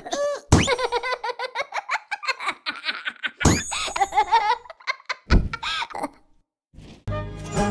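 Cartoon cat character laughing hard in a high-pitched voice, in quick repeated bursts. Two sudden thumps come about halfway through, and a musical note comes in near the end.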